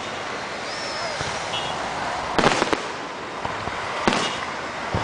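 Aerial fireworks shells bursting overhead: a cluster of sharp bangs and crackles about two and a half seconds in, and another about four seconds in.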